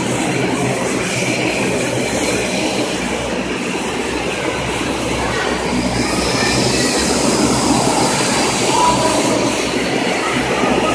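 Steady roar of a jet airliner's engines, with a faint high whine that rises slightly about halfway through.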